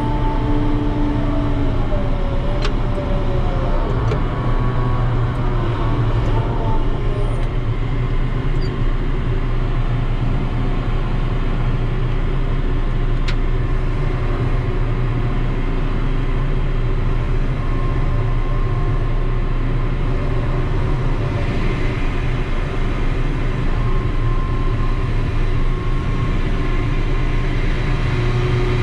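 Ship's deck crane machinery running with a steady, loud low drone, and a few faint clicks now and then.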